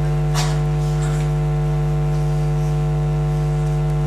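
Steady electrical mains hum and buzz from the sound system, a low drone with many even overtones, with one short faint hiss about half a second in.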